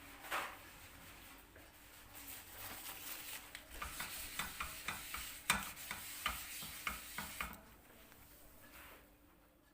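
A kitchen utensil stirring in a dish, clicking irregularly against its side about two or three times a second, over a steady hiss that fades out about two seconds before the end.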